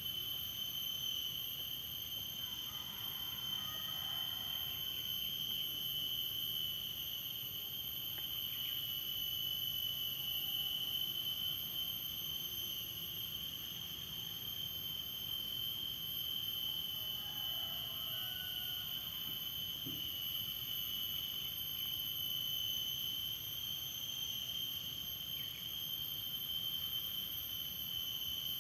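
Steady, high-pitched insect drone, unbroken and unchanging in pitch, with a few faint chirps beneath it twice.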